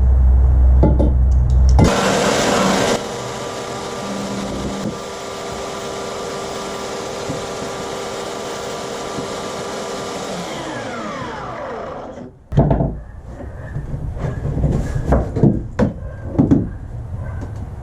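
An electric power tool's motor starts about two seconds in, runs steadily at high speed, then winds down with falling pitch and stops, followed by a few irregular knocks and clatters.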